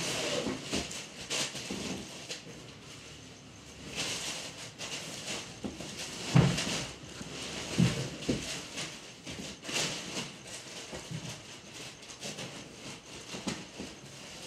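Soft rustling and scraping with scattered clicks and a few dull thumps, the loudest about six and a half and eight seconds in.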